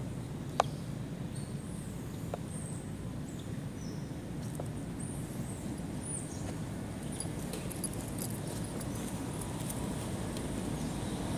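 Outdoor ambience: a steady low rumble with a sharp click about half a second in, a few fainter clicks, and faint high chirps now and then.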